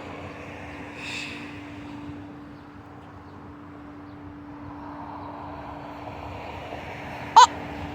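Steady background rumble of distant engine noise with a constant low hum, swelling slightly in the second half. A brief sharp squeak near the end is the loudest sound.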